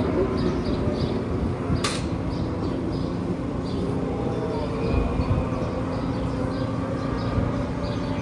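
Background music with a steady light beat over held chords, with one brief hiss about two seconds in.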